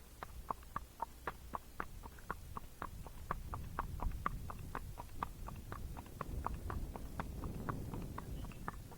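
Missouri Fox Trotter's hooves at the flat walk: an even four-beat rhythm of sharp clops, about four a second.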